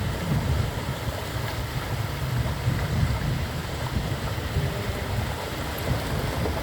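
Wind buffeting the microphone: an uneven low rumble that rises and falls throughout.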